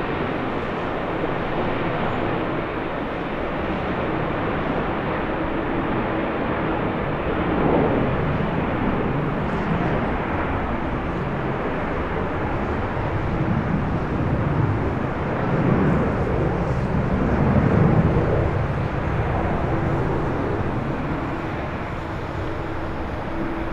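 Jet airliner engine noise: a steady rushing sound that swells several times, loudest about 18 seconds in.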